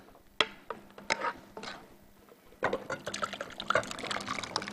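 Thick soup being poured from a nonstick pot into a ceramic bowl, with a metal utensil scraping and tapping against the pot to push it out. A few separate taps come first, then from about two and a half seconds in a busy run of scraping and splashing.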